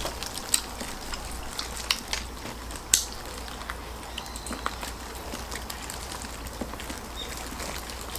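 Close-up eating sounds: chewing and tearing duck meat off the bone, with scattered wet smacks and clicks, the loudest about three seconds in.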